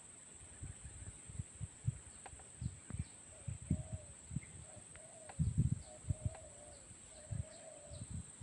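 Spotted dove cooing faintly, a run of low wavering coos starting about three and a half seconds in. Under it are irregular low thuds, and there are a few faint high chirps from other birds.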